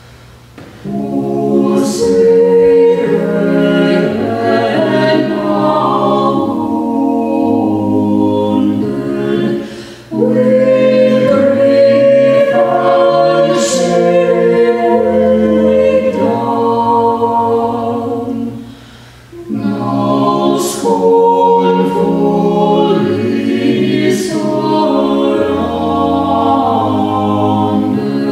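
Small choir of men's and women's voices singing a slow piece in harmony. The singing comes in about a second in, with short breaths between phrases at about ten and about nineteen seconds.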